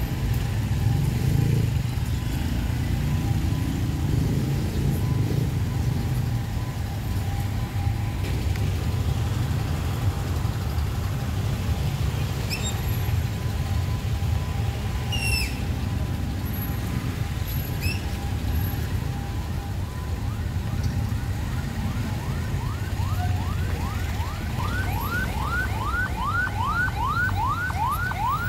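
Steady rumble of slow city traffic, cars and motorcycles on a wet road. Over the last few seconds an ambulance siren in a rapid yelp, a fast repeating up-and-down wail, comes in and grows louder.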